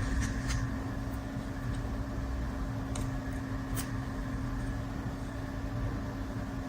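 A steady mechanical hum with one constant tone, and a few faint light clicks scattered through it.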